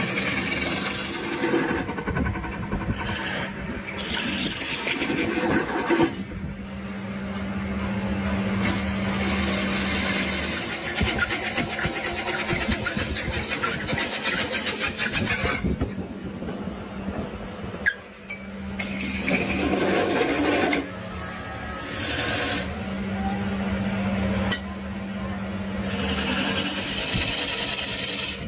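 Woodworking tools working wood: rasping and rubbing on wood, with a power tool's steady motor hum in some stretches. The sound changes abruptly several times, and there is a sharp click about eighteen seconds in.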